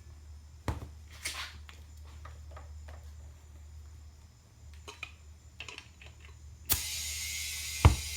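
Scattered light clicks and knocks of handling, then about two-thirds in a sudden steady hiss starts and keeps going. A single sharp knock comes near the end.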